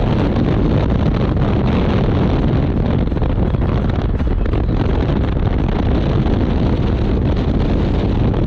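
Wind rushing loudly and steadily over the microphone at an open car window while driving, with the car's road and engine noise beneath it.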